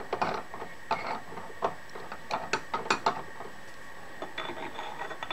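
Irregular metallic clicks and clinks of a collet being fitted up into a milling machine's spindle.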